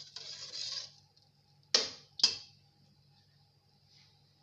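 A spoon stirring in a cooking pot for about a second. Then two sharp metallic clinks about half a second apart, each with a short ring.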